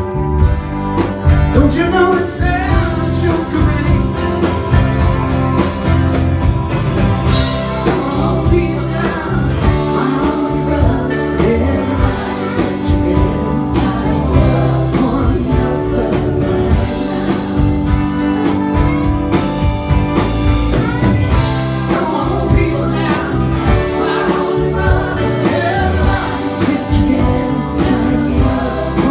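A live band playing a folk-rock song: acoustic guitar and drums, with singing over them.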